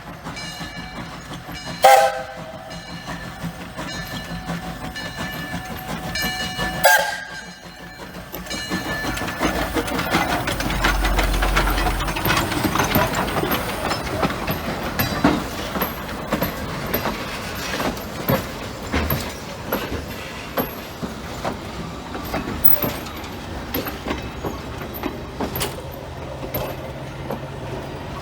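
A 1931 coal-burning 0-6-0 tank steam locomotive's whistle sounds several blasts in the first seven seconds. Then the train passes close by, a rush of noise peaking about eleven seconds in, followed by steady rolling noise and wheel clicks as the passenger cars go by.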